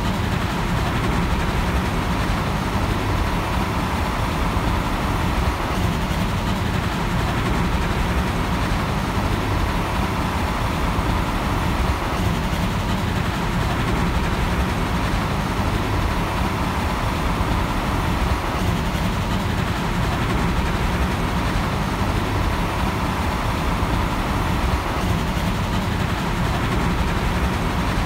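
Steady rumbling noise of vehicles in motion, even throughout with no distinct beats.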